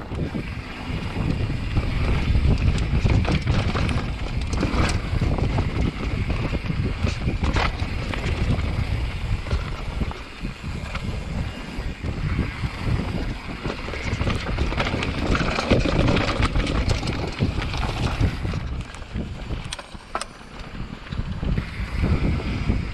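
Mountain bike riding fast down a rocky trail: a steady rumble of tyres over rock and wind buffeting the microphone, with frequent sharp knocks and rattles as the bike hits rocks.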